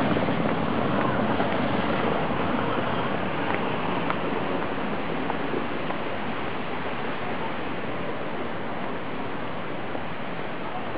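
Steady rush of running water, an even hiss that fades slowly.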